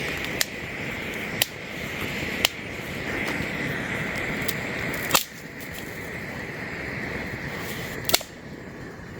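Pull-pin flare fire starter burning with a steady hiss under small poplar sticks, with five sharp cracks of the wood catching. The hiss weakens about five seconds in and falls off further after the last crack near the end.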